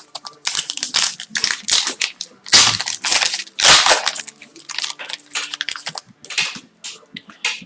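Foil wrapper of an Upper Deck hockey card pack being torn open and crinkled, a quick run of crackling rustles that is loudest in the middle.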